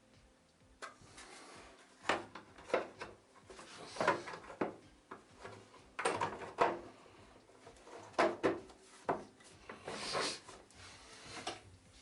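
Plastic vacuum cleaner housing being handled and fitted together by hand: irregular clicks, knocks and short scrapes as the upper cover is seated onto the body over the speed regulator.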